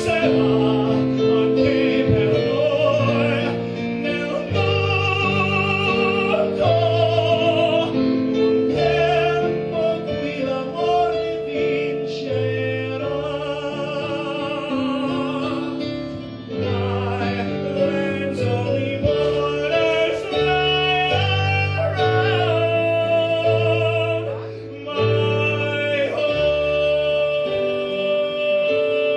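A man singing a theatrical song in a full voice with strong vibrato into a microphone, over sustained instrumental accompaniment. He holds a long note near the end.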